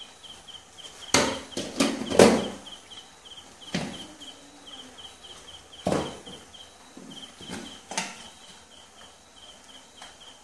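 A steel spoon knocks and clinks against a pan and spice jars, a handful of sharp taps as chilli powder goes into the chicken. Under them a cricket chirps steadily in quick, even pulses.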